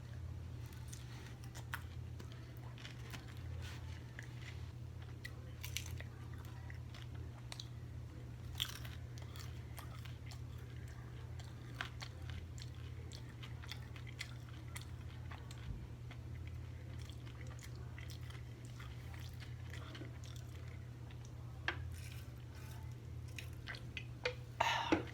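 Close-up chewing and biting of food, with many small wet clicks and crunches over a steady low hum, and a brief louder sound just before the end.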